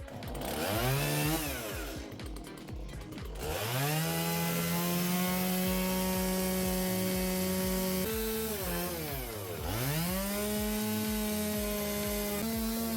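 Two-stroke chainsaw revving up and held at high speed while cutting wood. It drops off briefly about two-thirds of the way through, then revs straight back up.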